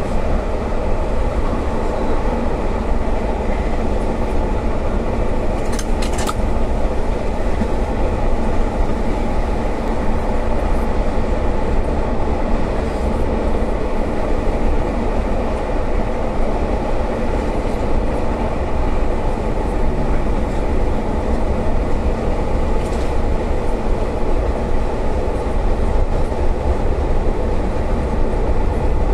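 Steady rumble and rattle of a railway passenger carriage running at speed along the track, heard from inside the coach. A few sharp clicks come about six seconds in, and a fainter one later.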